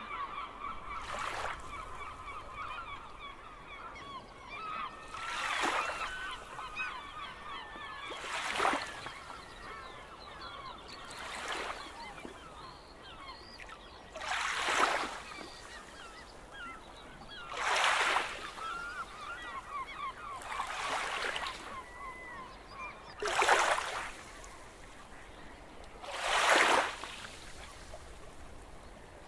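Gulls calling, many overlapping honking cries, over sea waves that break in swells about every three seconds.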